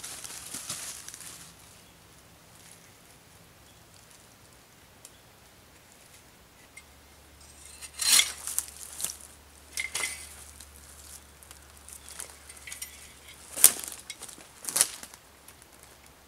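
Brushing and rustling through forest undergrowth, then from about eight seconds in a run of sharp knocks and snaps of dry dead wood as poles and sticks are handled on the forest floor.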